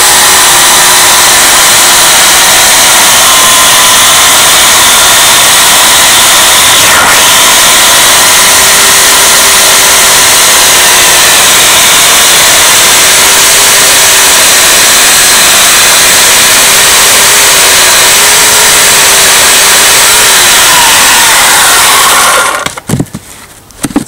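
Portland 14-inch electric chainsaw running flat out while cutting through a log, its motor pitch dipping and recovering with the load. The saw stops abruptly about 22 seconds in, followed by a couple of knocks as the cut round drops away.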